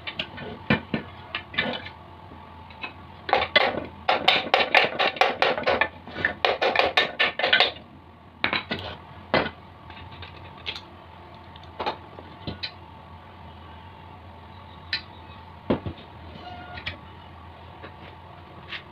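Metal engine parts of a Honda GX390 clicking and clattering as they are handled and the piston is worked out of the cylinder. A fast run of clicks lasts about four seconds, then single knocks follow at intervals.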